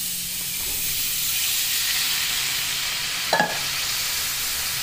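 A flour-and-butter roux sizzling steadily in a hot nonstick frying pan as milk is added little by little and stirred in with a silicone spatula. A short sharp sound cuts through once, about three and a half seconds in.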